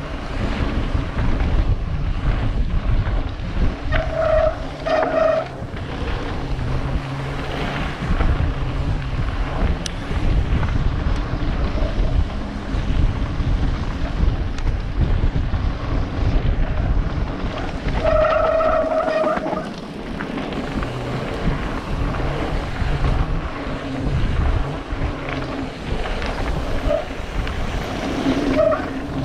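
Wind buffeting a helmet-mounted camera's microphone over the rumble and rattle of a mountain bike's tyres and frame on a rough dirt trail descent. A brief pitched squeal cuts through twice, about four seconds in and again around eighteen seconds.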